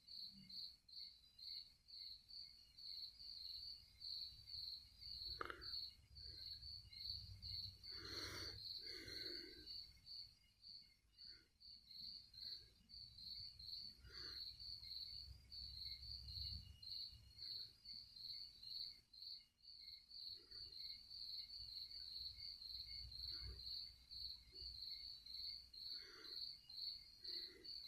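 Faint cricket chirping in a steady run of quick, high-pitched pulses, with a few soft knocks and rustles about five and eight to nine seconds in.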